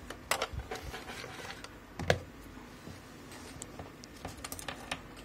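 Scattered light clicks and taps of multimeter probes touching test points on a laptop motherboard, with one louder knock about two seconds in and a quick run of clicks near the end.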